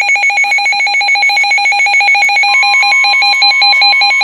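Emergency Alert System alert signal ahead of a flood warning: a loud, rapidly pulsing electronic alarm of several fixed tones, with a steady tone joining about halfway through.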